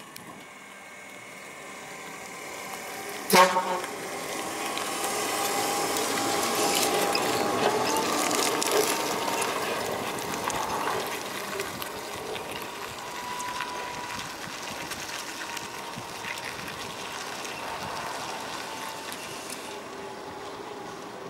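ZiU-9 trolleybus on the move: its electric traction motor gives a faint steady whine over rolling noise that swells and then slowly fades as it passes. A single sharp clunk sounds about three seconds in.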